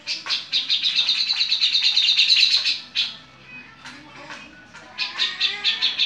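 Caged cucak jenggot (Alophoixus bres, a bulbul) giving its harsh song: a fast run of rasping notes lasting nearly three seconds, a pause broken by a couple of single notes, then another fast run starting about five seconds in.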